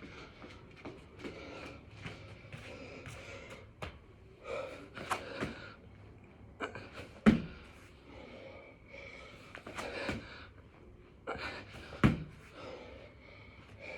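A man breathing hard while doing six-count burpees, with heavy thumps of his body landing on the floor, the two loudest about halfway through and near the end.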